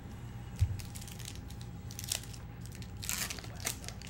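Foil baseball-card pack wrapper crinkling and tearing as it is opened by hand, in short bursts about three seconds in. A soft thump comes about half a second in.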